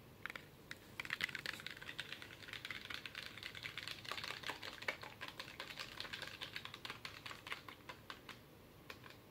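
A small plastic spoon stirring green slime in a plastic cup, a fast run of sticky clicks and ticks. The slime is still runny and not yet activated. The clicking starts about a second in and thins out near the end.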